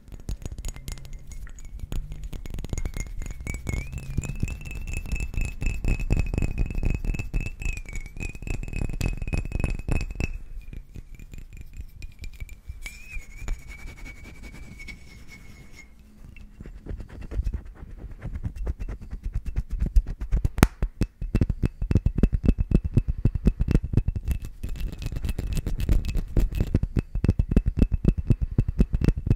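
Fingertips and nails tapping and scratching rapidly on a small glass bottle partly filled with liquid, close to the microphone. The taps thin out for a few seconds in the middle and come back louder and denser near the end.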